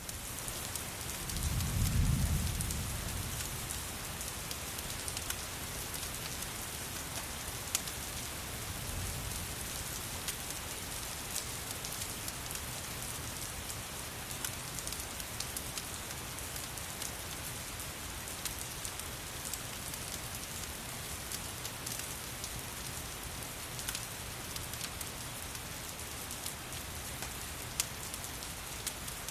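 Steady rain falling, with scattered sharp crackles and pops from a wood fire. A low rumble swells about two seconds in.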